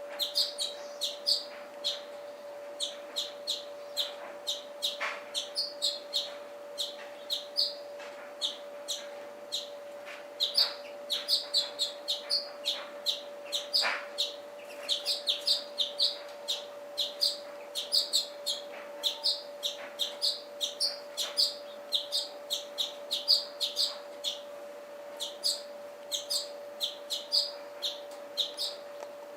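A flock of small birds chirping at a seed feeder: quick, high, short chirps, several a second, over a steady low hum.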